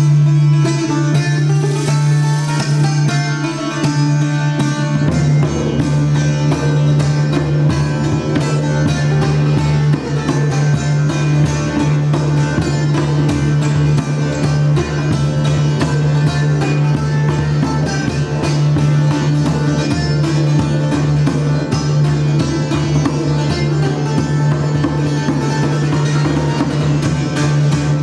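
Live folk-style music: a long-necked lute plucked in quick runs over a steady didgeridoo drone. Djembe hand-drum beats come in about five seconds in and carry on.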